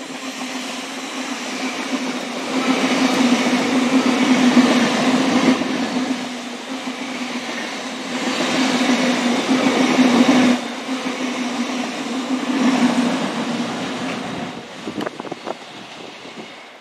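Great Western Railway Hitachi intercity express train running past along the platform over a steady low hum, its noise swelling twice and then dying away.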